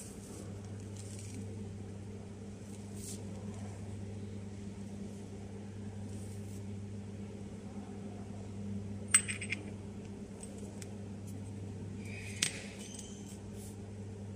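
Stainless steel hex bolts clinking against each other and the table as they are handled: a sharp metallic click about nine seconds in with a smaller one just after, and another about twelve and a half seconds in, each ringing briefly. A steady low hum runs underneath.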